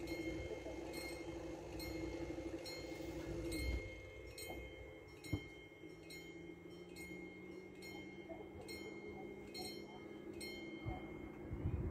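Electronic level-crossing warning bell (TD96/2 sound unit) ringing in regular strikes, about two a second, stopping near the end. A steady hum runs beneath it for the first few seconds.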